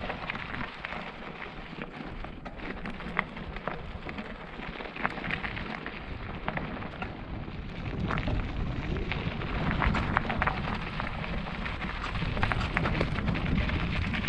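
Knobby 29-inch tyres of a Kona Mahuna hardtail mountain bike rolling over loose gravel and rocks, a steady crackle of stones with many sharp ticks and rattles. A low rumble grows louder from about eight seconds in.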